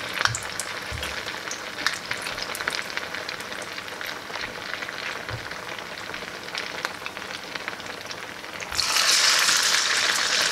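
Hot oil sizzling in a frying pan, a steady hiss with many small pops. Near the end a rice-dough vada is dropped in, and the sizzle jumps to a loud, dense hiss.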